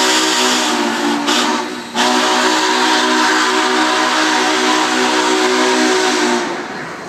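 Union Pacific 844 steam locomotive's whistle blowing long, loud blasts of several notes at once over a steam hiss. It breaks off briefly about two seconds in, sounds again and stops about six and a half seconds in, leaving the noise of the passing train.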